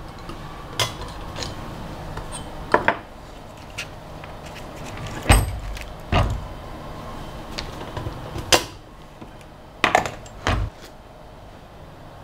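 Irregular knocks and clicks of a small CNC engraver's aluminium frame and parts being handled and set down on a workbench, loudest about five to six seconds in and again around ten seconds.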